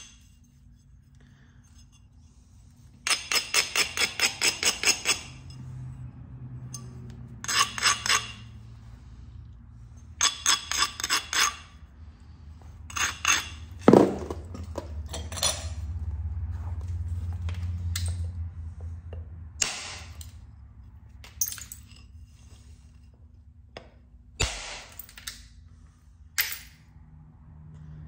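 Flint knapping on a chert knife blank: several bursts of quick, rhythmic stone-on-stone strokes, and one sharp knock about 14 seconds in.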